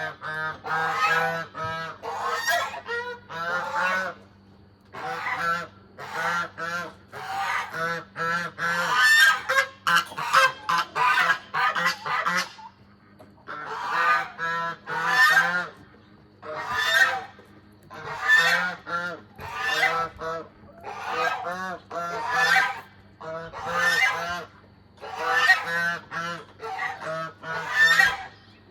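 Domestic goose honking loudly and repeatedly in long bouts of rapid calls, with a few short pauses, while being fed.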